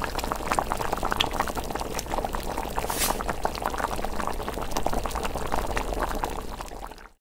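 Hot pot broth boiling in a steady stream of bubbling and small pops, fading out near the end.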